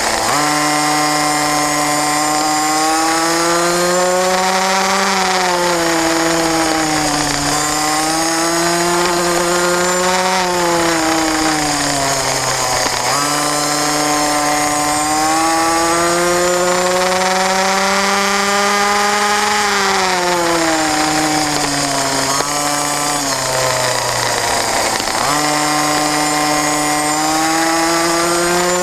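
Racing kart engine at race pace, its pitch climbing steadily for several seconds at a time and then dropping as the kart slows for corners, three times over, rising again near the end.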